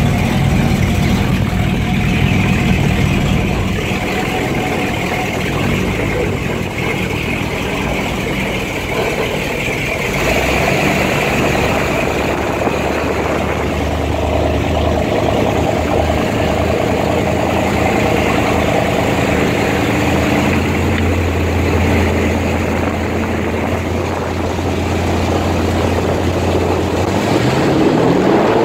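Inboard engine of a classic wooden runabout running steadily while underway, with rushing wind and water noise; near the end the engine note rises as it speeds up.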